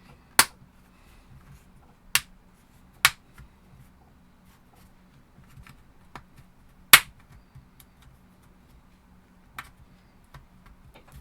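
Plastic retaining clips of a Teclast T40S tablet's back cover snapping loose one at a time as a plastic pry wedge is worked around the edge: sharp clicks, four loud ones and a few fainter ones, spread out with pauses between them.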